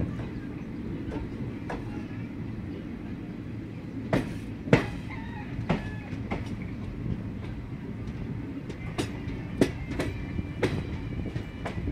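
Passenger train coach running along the track with a steady rumble, its wheels giving sharp clanks, several in pairs, in the middle and near the end as they cross rail joints. A faint high wheel squeal comes in during the second half.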